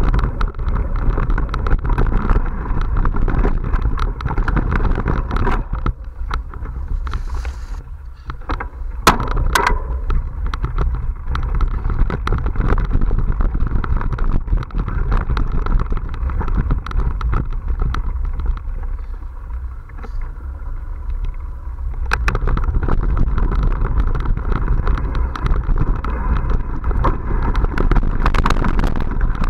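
Wind buffeting the camera's microphone, with tyre rumble and frequent rattles and knocks from a mountain bike riding a rough dirt trail. It eases off twice, a quarter of the way in and again about two-thirds in, then picks up for the last stretch.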